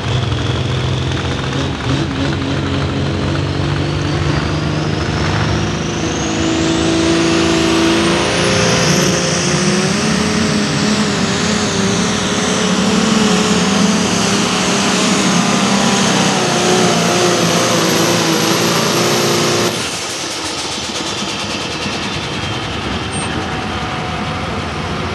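Light pro stock pulling tractor's 466-cubic-inch turbocharged diesel at full throttle under load, with a high turbo whine rising steeply over the first several seconds and then holding. About twenty seconds in, the whine cuts off abruptly and the level drops as the throttle comes off at the end of the pull.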